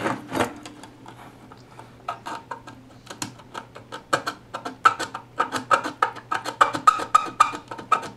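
Hand tool scraping and scratching on a circuit board, corroded copper traces being cleaned: a run of short, sharp scratching strokes, sparse at first and then about four or five a second from around four seconds in, with a knock at the very start. A steady low hum runs underneath.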